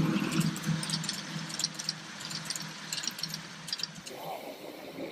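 Ride-on miniature railway train running along the track: a steady low hum with irregular clicks and rattles from the wheels over the rails. The hum fades away near the end.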